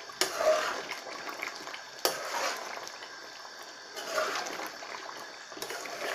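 Water running and splashing, a steady rushing noise that jumps abruptly louder about every two seconds.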